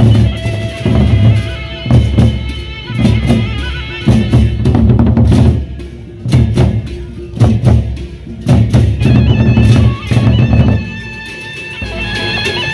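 Gendang beleq ensemble: large Sasak barrel drums beaten with sticks in loud, fast interlocking rhythms, with sustained ringing tones above the drumming. The drum strokes fall away about eleven seconds in, leaving the ringing tones.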